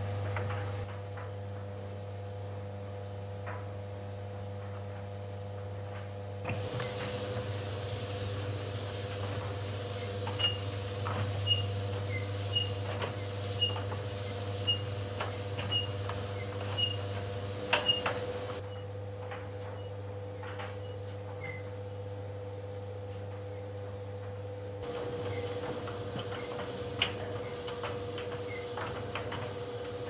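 Bosch Classixx Maxx 2200 W tumble dryer running: a steady motor hum with a constant whining tone as the drum turns. Midway a run of evenly spaced light ticks, about one and a half a second, and scattered small knocks come from the tumbling load.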